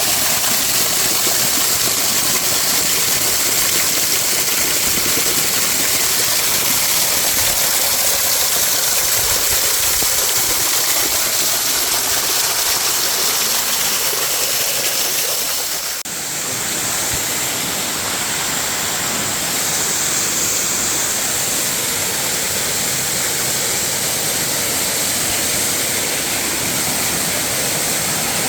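Waterfall: water pouring and splashing in a steady, dense rushing hiss. About halfway through the sound dips briefly and shifts abruptly to a slightly different mix of the same rush.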